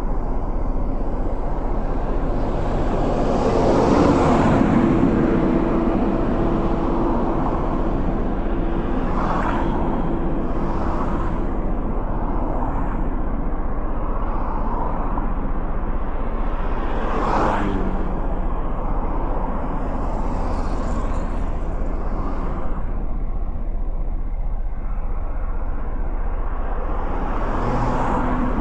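Road traffic heard from a motorcycle stopped at an intersection: a steady low engine rumble with several cars passing, the loudest pass about four seconds in and a quicker one at about seventeen seconds.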